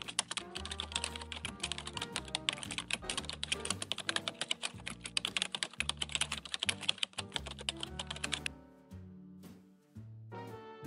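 Rapid computer-keyboard typing sound effect laid over background music with a bass line; the typing stops about two seconds before the end while the music carries on.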